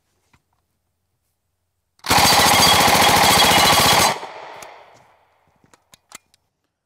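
Thompson M1A1 submachine gun in .45 ACP firing full-auto: one continuous burst of about two seconds, starting about two seconds in, with its echo dying away afterward and a few faint clicks after that.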